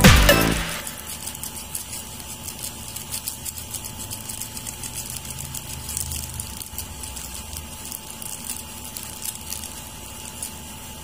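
Background music ends about half a second in. After that, a pot of bulalo beef soup with green beans and corn boils hard: steady fine bubbling and crackling over a low hum.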